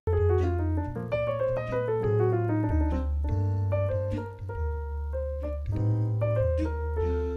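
Instrumental bossa nova on piano, with falling runs of notes over a deep, long-held bass line.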